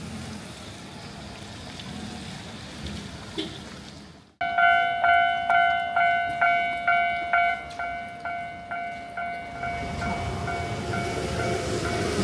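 Railway level-crossing warning bell ringing, about two dings a second, starting abruptly about four seconds in; a train's rumble grows under it near the end.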